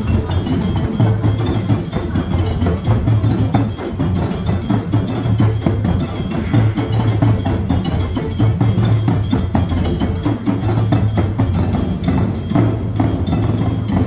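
Live drum performance: rapid, continuous drumming with a deep low beat, and lighter, sharper strokes mixed in.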